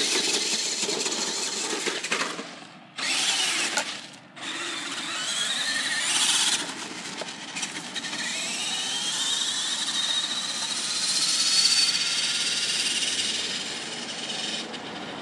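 Radio-controlled monster truck's motor and drivetrain whining as it drives off, the pitch rising as it speeds up. The sound breaks off twice, about three and four seconds in. A long rising whine follows from about eight to twelve seconds in, and the sound grows fainter near the end as the truck gets far away.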